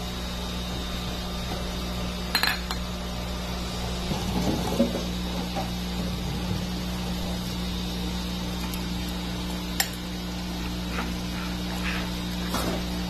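A metal spoon clinking against ceramic and aluminium kitchenware three times, with a little softer scraping between, over a steady low hum.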